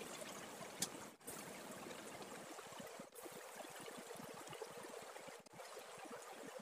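Faint, steady hiss from a pan on a gas stove while cooked basmati rice is spread over meat with a wire skimmer, with a single light click about a second in.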